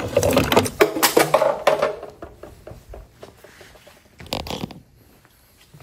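Handling noise from hands working at wiring and plastic: a run of clicks and rustles for about the first two seconds, then quieter, with one short scrape a little past four seconds in.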